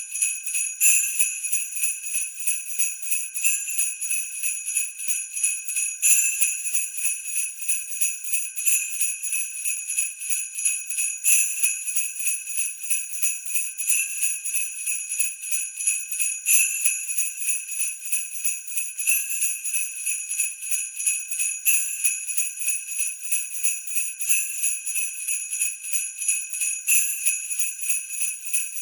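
Sleigh bells shaken continuously in a steady rhythm, with a stronger jingle about every two and a half seconds.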